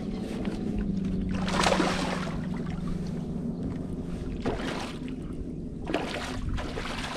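Steady low hum of a fishing boat's motor, fading after about three seconds, with three short rushes of noise about one and a half, four and a half and six seconds in, the first the loudest.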